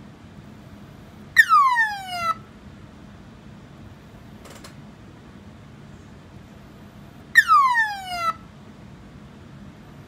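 Western Digital Caviar hard drive giving a siren-like falling whine twice, about six seconds apart. Each whine lasts about a second and cuts off sharply, over a steady low hum.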